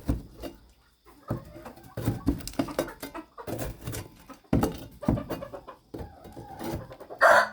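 Metal paint spatula scraping dried chicken droppings off the coop's wooden wall and roosting bars in short, irregular strokes. A rooster starts crowing near the end.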